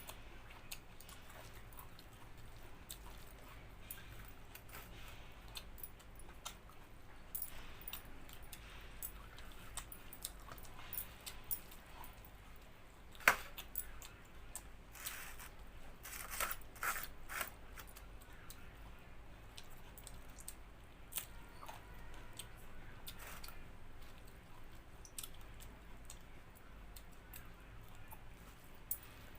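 A person eating by hand, chewing and crunching food, with scattered small clicks and taps. There is one sharper click about halfway through and a short run of clicks just after it, over a faint steady low hum.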